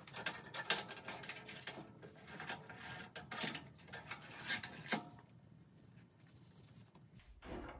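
Metal clicks, rattles and scrapes of welding-table clamps being unlatched and swung off a tack-welded steel square on a steel fixture table. This is busiest for about the first five seconds, then dies down to light handling.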